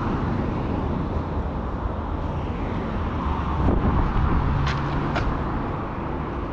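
Steady outdoor background noise with a low rumble of road traffic. A few light clicks come in the second half.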